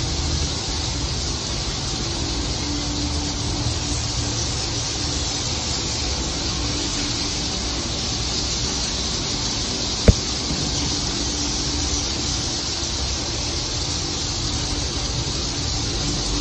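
A large flock of swiftlets inside a swiftlet house, chittering and twittering all at once: a dense, continuous high-pitched chatter. A single sharp click comes about ten seconds in.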